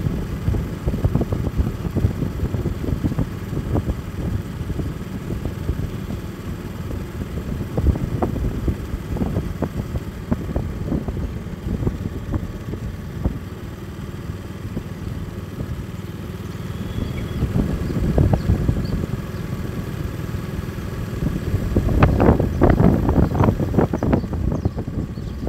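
Riding a motorbike along a road: wind rumbling and buffeting on the microphone over the bike running. The buffeting grows stronger near the end.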